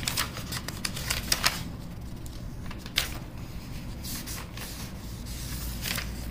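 Pages of a textbook being turned by hand: a quick run of crisp paper rustles and flicks in the first second and a half, a single flick about three seconds in, and a few more near the end.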